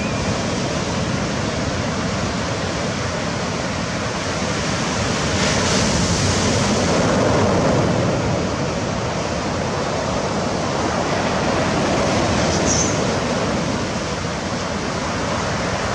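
Sea surf: waves washing in a steady rush that swells about halfway through, with some wind noise on the microphone.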